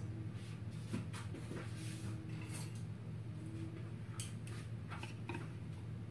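A steady low hum in a small kitchen, with a few scattered light clicks and taps of utensils and dishes being handled.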